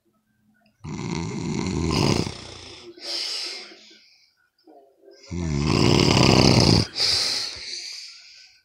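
Loud snoring: two snores about four seconds apart. Each is a low, rattling snore that trails off into a higher, fading hiss.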